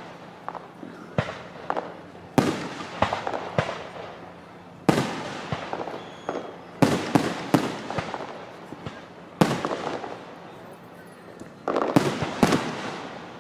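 Aerial fireworks shells bursting: about a dozen sharp bangs at uneven intervals, some in quick clusters, each trailing off in an echo.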